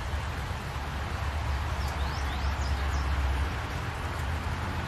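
Steady rain falling, a constant hiss. A low rumble swells and fades in the middle, and a bird gives a few short high chirps about two seconds in.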